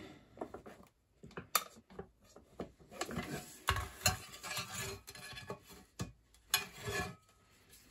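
Handling noise of a Dualit toaster's cast aluminium end cover being worked on and turned over: irregular clicks, knocks and rubbing of metal, with the power cable and its grommet being pushed through the casting.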